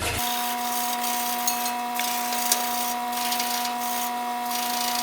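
Power tool fitted with a stainless steel wire brush, running with a steady whine and scrubbing aluminum clean before welding. It switches on just after the start.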